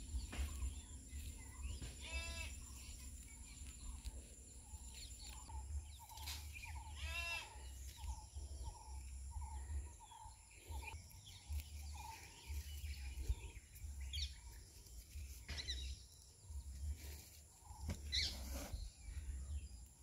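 Two short animal calls, about two and seven seconds in, each a brief rising-then-falling cry, over a steady low rumble and a few faint clicks.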